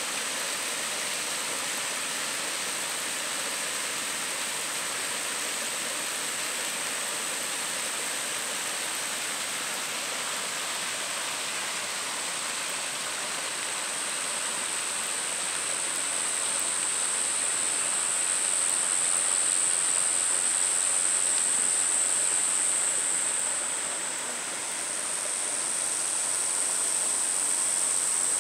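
Steady rush of water from a waterfall. A steady high-pitched drone sits over it, growing louder a little past the middle and dipping briefly near the end.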